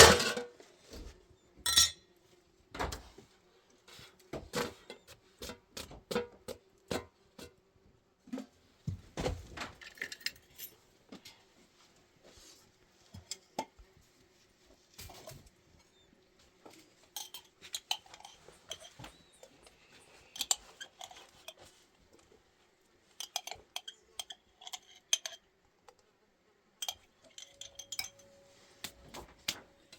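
Dishes and metal utensils clinking and knocking: scattered sharp clinks throughout, some of them ringing, with the loudest knocks right at the start and about two seconds in.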